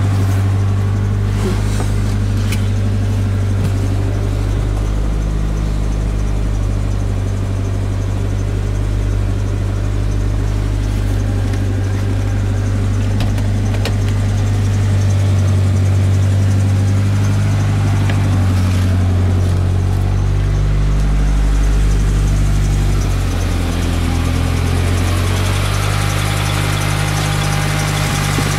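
Mitsubishi Eclipse GSX's turbocharged four-cylinder engine running at idle, its speed drifting up and down a little.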